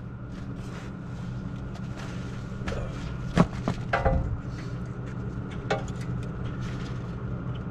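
Sharp metallic clanks and taps as hand tools and brake parts are worked at the front wheel hub, caliper and rotor of a Ford F-350, the loudest two about three and a half and four seconds in, one ringing briefly. A steady low hum runs underneath.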